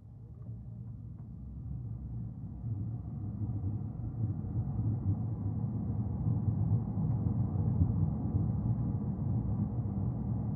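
Low rumble of a car on the move, road and engine noise, growing louder over the first five seconds or so and then steady.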